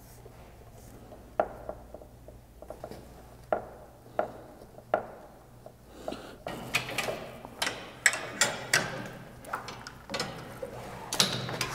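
Scattered clicks, knocks and rubbing as hydraulic hoses and their metal fittings are handled and fitted on a compact tractor's loader. The knocks are sparse at first and come much more often from about six seconds in.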